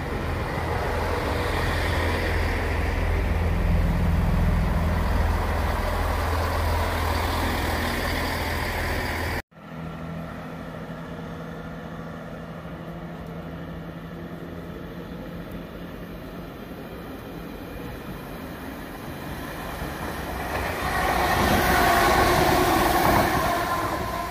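Chiltern Class 165 diesel multiple unit running past the platform, its underfloor diesel engines giving a heavy low rumble that builds over the first several seconds. After an abrupt cut, a second Class 165 unit is heard approaching from a distance and passing on the far line, loudest a few seconds before the end.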